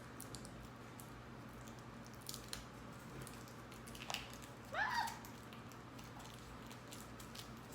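Faint clicks and crackles of a knife working at tight vacuum-sealed plastic wrap on a card deck, with one short squeak that rises and falls in pitch about five seconds in.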